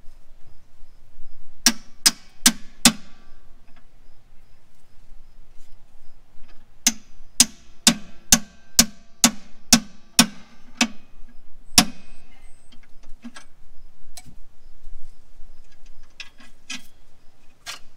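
Hammer blows ringing on the steel front spindle of a 1959 Chevrolet Impala, knocking the ball joint stud loose so the control arm can be separated. Four blows, a pause, then about ten more at roughly two a second, then a few lighter clinks.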